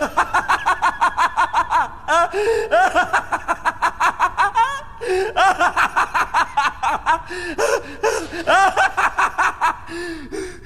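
A man's loud, evil, gloating laugh, the villain's laugh of triumph: long runs of rapid, high-pitched 'ha-ha' bursts, several a second, broken by short catches of breath and thinning out near the end.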